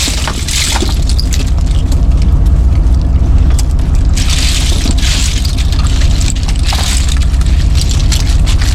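Small fishing boat's engine running steadily with a low drone, with water splashing in bursts, the biggest about four seconds in, and a few knocks.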